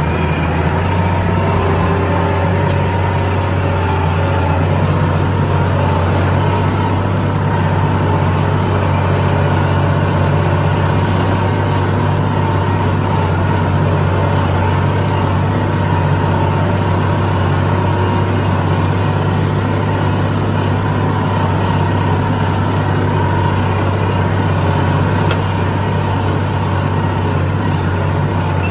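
Farm tractor engine running steadily with a low, even drone as it pulls a disc harrow through the field, heard from inside the tractor cab.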